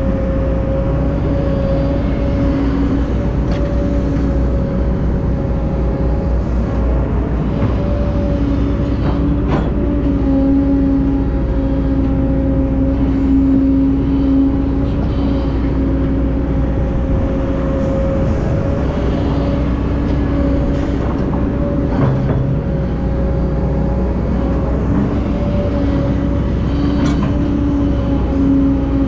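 Heavy diesel earthmoving machinery running steadily at a constant engine note, with a few scattered knocks and clanks.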